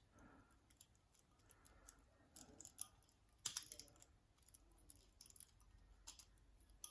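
Faint, scattered clicks and light scrapes of lever-lock picking tools working the levers inside a Securit 6-lever padlock while tension is held on the bolt to pick it back to locked, with one sharper click about three and a half seconds in.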